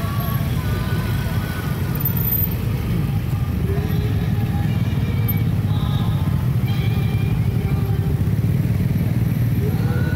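Engines of many small motorcycles running together at low speed in a dense, slow-moving column, a steady low rumble.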